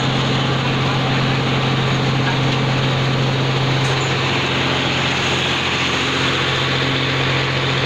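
Kinnow orange waxing and packing machine running: a steady mechanical drone of its motors, rollers and conveyors, with a strong low hum underneath.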